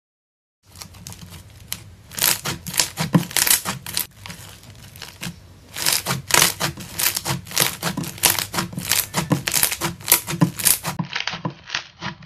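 Slime with foam beads being squeezed and pressed by hand, giving dense crackling clicks and pops that come in loud clusters. The sound starts about a second in and turns duller near the end.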